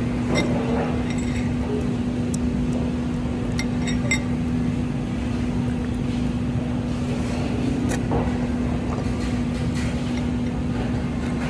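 Steady low background hum with a constant drone, and a few light clicks and clinks of tableware now and then, clustered a few seconds in.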